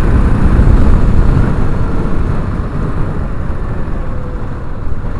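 Wind buffeting the helmet microphone over the running engine of a 1987 Honda XL600R, a 589cc single-cylinder, at road speed. The noise eases somewhat about halfway through.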